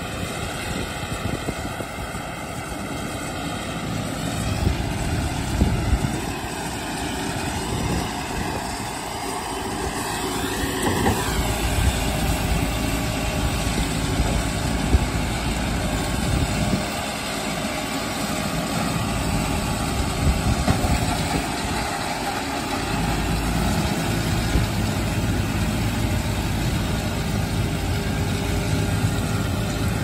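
A John Deere 5100M tractor's diesel engine runs steadily under load, pulling a John Deere 550M round baler that is picking up a windrow of hay. The engine and baler drone grows louder over the first dozen seconds as the machine comes close.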